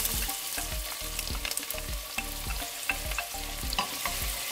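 Chopped onions sizzling in hot oil in a stainless steel pot, stirred with a wooden spatula that gives frequent light clicks and scrapes against the pot.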